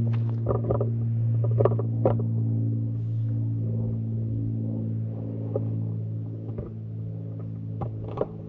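Steady low hum with overtones, with scattered light clicks and taps over it.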